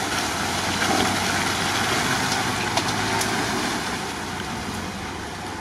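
UAZ Patriot SUV engine running as the vehicle crawls through deep mud, tyres churning. The sound is steady and grows a little quieter towards the end as the vehicle moves on past.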